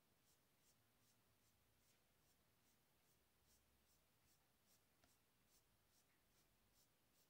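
Near silence: faint room tone with very faint, evenly spaced ticks about two and a half a second.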